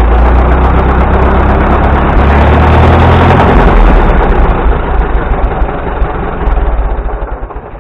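Oliver 66 tractor engine running loud and strong, then gradually easing down over the last few seconds.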